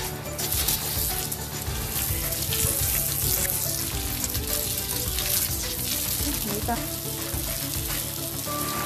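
Water from a garden hose spraying and spattering against an outside wall and the ground, a steady hiss with close splashing.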